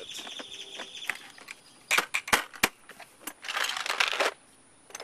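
Socket wrench working the side-step mounting bolts: fast ratcheting ticks, sharp metallic clicks and clinks, and a short run of rapid ratcheting near the end.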